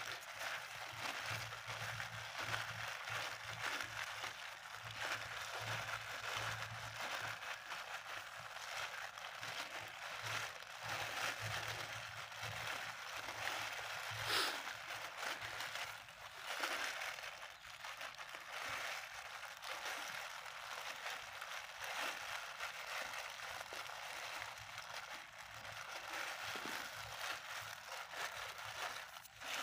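Thin plastic bag crinkling and rustling steadily as a hand kneads flour dough bait inside it, with one sharper crackle about halfway through.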